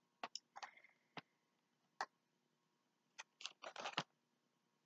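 Faint clicks and rustles of small items and packaging being handled, a few scattered ones and then a closer cluster near the end.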